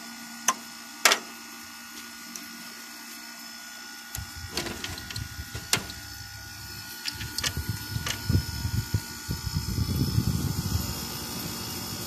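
2002 Whirlpool 5000 BTU window air conditioner running with a steady hum, its fan slow and weak even after a capacitor swap. Two sharp clicks come about half a second and a second in as its control knob is turned. From about four seconds in there is uneven low rumbling and knocking from handling.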